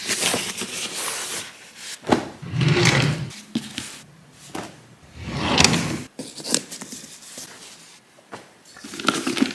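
Fabric rustling and swishing as folded clothes, camouflage cargo trousers and a knit beanie, are pulled from a wardrobe shelf and handled, in several separate bursts.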